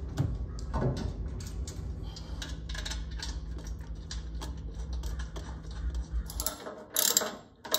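Small irregular metal clicks and rattles of bolts, washers and nuts being threaded by hand, fastening a table saw's extension wing to the saw's table, with a few louder clicks near the end. A steady low hum runs underneath and cuts off about six and a half seconds in.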